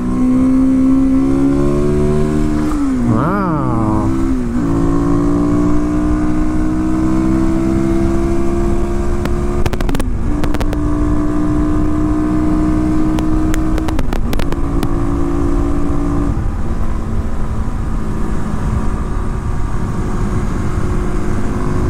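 2019 Kawasaki KLX250's single-cylinder engine pulling hard through a second-gear wheelie, its note heard mostly as intake sound from the opened-up airbox. The revs fall sharply and climb again about three seconds in. The engine then settles into a steady pitch under way, with short breaks in the note about ten and fourteen seconds in, over a steady rush of wind.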